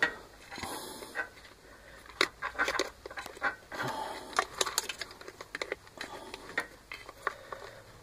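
Plastic snap latches on a washing machine's control-board casing being pried open with a screwdriver: irregular clicks, taps and scraping of plastic on plastic.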